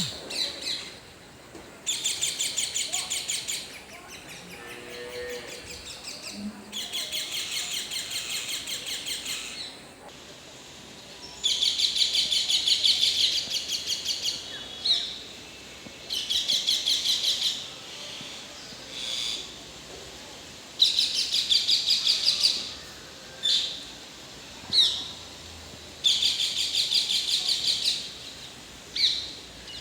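Rose-ringed parakeets calling: repeated runs of rapid, harsh, high screeching notes, each run lasting a second or two, with a few short single calls in between.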